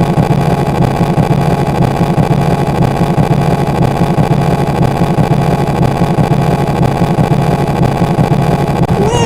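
A steady engine running at an unchanging pitch. Just before the end a warbling siren-like wail starts.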